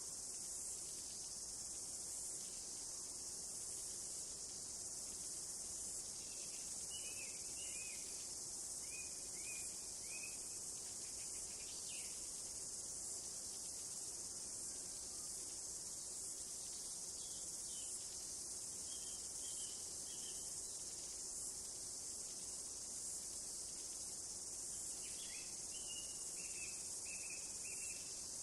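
Steady high-pitched chorus of insects, with a bird calling in short runs of chirps several times over it.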